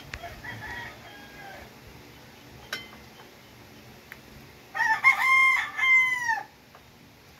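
A rooster crowing once, loud, about five seconds in, the call held and then falling away at its end. A fainter call comes near the start.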